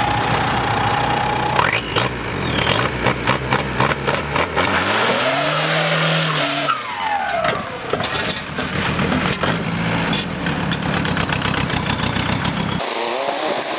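Cummins diesel engine in a swapped VW Beetle revving hard as the car launches and drives off, with a rapid exhaust clatter and the engine pitch rising and then falling around the middle. The sound cuts off abruptly near the end.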